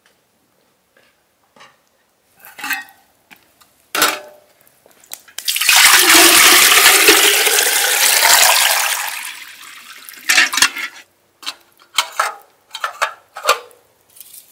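Water poured from a metal jug into a samovar's water chamber: a loud, rushing splash lasting about four seconds, starting about five seconds in and trailing off. Short metallic clanks and clinks come before and after the pour.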